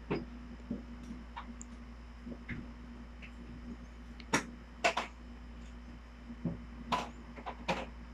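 Quiet room tone: a steady low hum with a faint steady tone, and a few scattered sharp clicks, the loudest in the second half.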